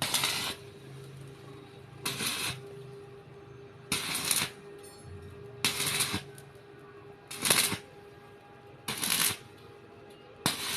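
Electric arc welding: seven short crackling bursts of the arc, each about half a second, coming every second and a half to two seconds, over a faint steady hum.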